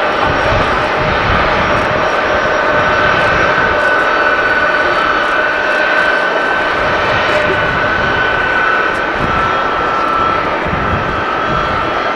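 Boeing C-17 Globemaster III's four Pratt & Whitney F117 turbofans running at taxi power: a steady high whine over jet rumble, the whine dropping slightly in pitch about three-quarters of the way through. Wind buffets the microphone.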